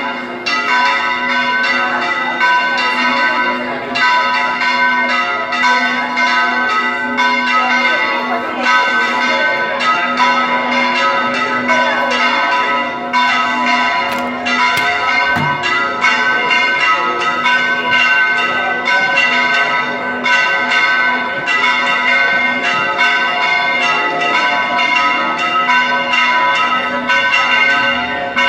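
Tower church bells ringing continuously, several overlapping strikes a second, each left ringing over the next.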